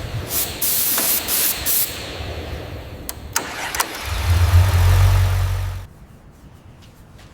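Spraying hiss in several short bursts, then a loud low motor hum that cuts off suddenly about six seconds in.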